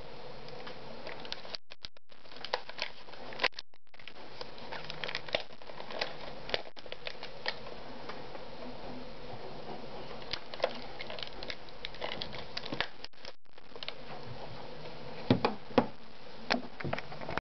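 Hands handling a Regula Variant 730-2 flash unit, its plastic body giving irregular clicks and taps, then a few louder knocks near the end as it is set down on a wooden desk.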